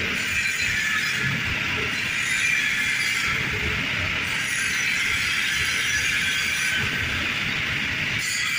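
Steady mechanical noise, even in level throughout, with a hiss-like upper-middle band and no distinct strokes or breaks.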